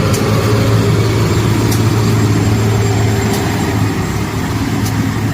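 Motor vehicle engine running steadily with a low hum, with no change in pitch.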